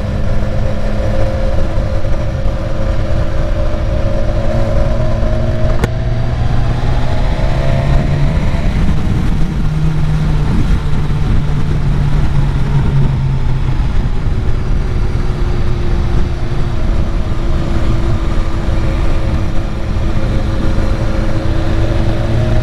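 Motorcycle engine running under way, with heavy wind rumble on the microphone. The engine note climbs about six seconds in as the bike accelerates, holds, then eases back about halfway through and runs steadily.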